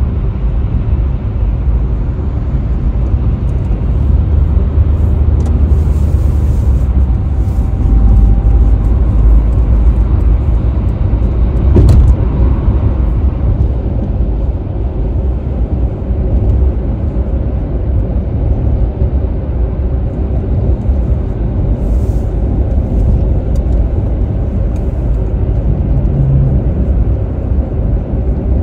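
Steady low rumble of road and engine noise inside a moving car, with a single sharp knock about twelve seconds in.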